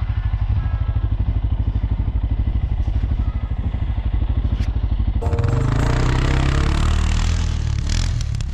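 CFMOTO CForce 600 ATV's single-cylinder engine idling with an even pulsing beat, then revving up about five seconds in, its note rising under a broad rush of noise as the quad gets moving.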